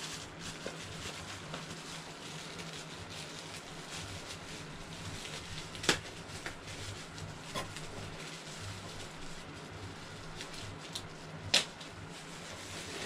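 Plastic bags and wrapping rustling and crinkling as a boxed Funko Pop figure is unwrapped by hand, with two sharp clicks, one about six seconds in and one near the end.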